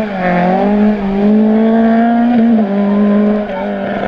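Small hatchback race car's engine held at high, steady revs as it drives through a cone slalom. The pitch dips a little about two and a half seconds in and wavers again near the end.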